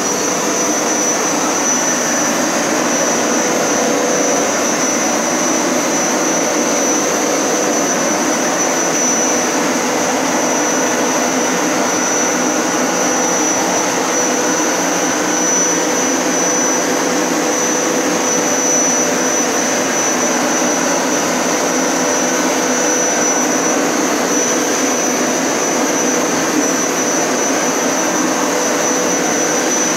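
Hoover Power Scrub Elite upright carpet cleaner running steadily on its wash setting while shampooing a rug: a loud, even motor rush with a steady high-pitched whine.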